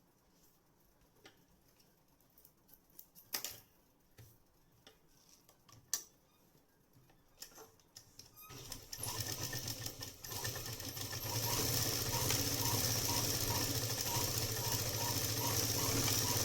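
A few isolated clicks, then a sewing machine starts about halfway through, speeds up over a couple of seconds and runs fast and steady with a light regular ticking. It is stitching a test seam with the upper-thread tension loosened, to see whether the thread still breaks.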